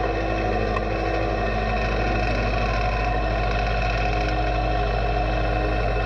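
Kubota L4701 tractor's four-cylinder diesel engine running steadily while the tractor drives with its front loader, heard from the operator's seat.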